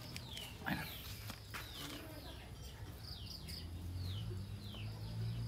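Small birds chirping repeatedly in short, high, falling notes, with a brief louder call about a second in. A low steady hum grows louder from about four seconds in.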